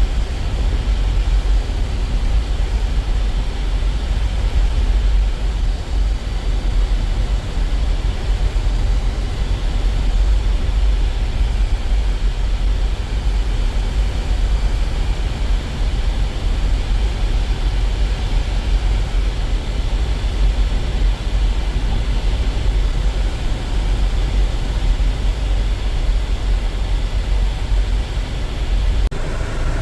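A car being driven, with steady low road and engine rumble that is heaviest in the deep bass.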